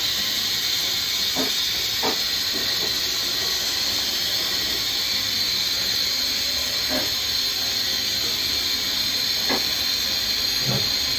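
American Custom Lifts M1 single-post car lift lowering: hydraulic fluid hissing steadily through the lowering valve as the runways come down, with a few faint knocks.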